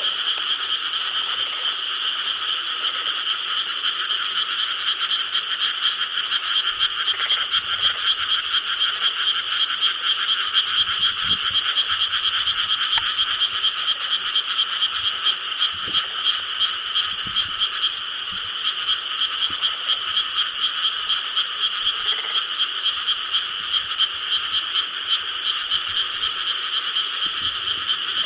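Chorus of many frogs in rice paddies, croaking over one another in a dense, unbroken mass of rapid pulsed calls.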